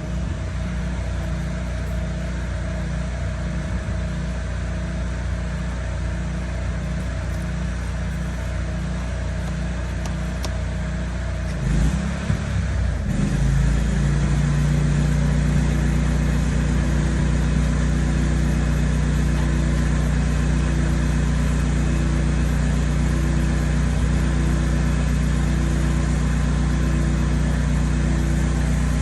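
Pressure washer's petrol engine running steadily with spray noise. About twelve seconds in, the sound shifts and grows louder, then holds steady.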